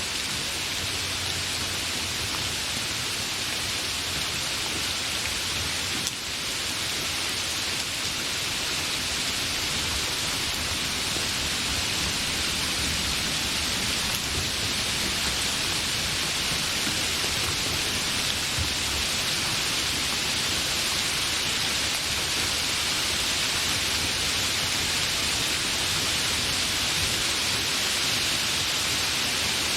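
Steady rain falling: a dense, even hiss with no letup.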